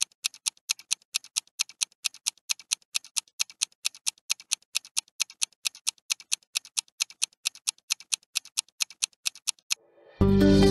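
Countdown-timer ticking sound effect: evenly spaced clock ticks, about five a second, which stop shortly before the end as music comes in.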